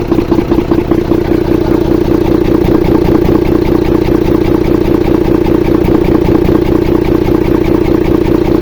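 Volvo 380 truck diesel engine running at idle with its manifold off, making a fast, even clatter that the owner takes for a strange noise in the valves.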